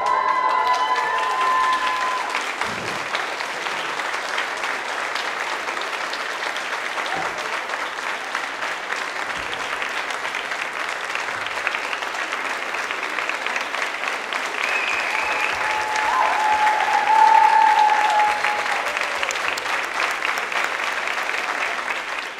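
Audience applauding steadily, with a held cheer from the crowd near the start and another, the loudest moment, about seventeen seconds in.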